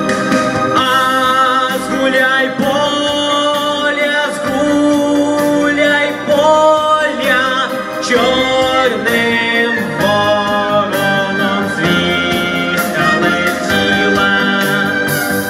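A teenage boy singing a Ukrainian song into a handheld microphone, with instrumental accompaniment underneath.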